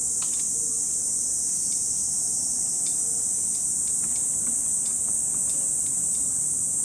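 A chorus of cicadas buzzing in a steady, high-pitched drone.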